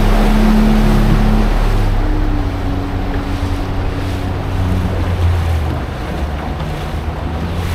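A small wooden motorboat's engine running steadily at speed as a low hum. Water rushes along the hull and wind buffets the microphone.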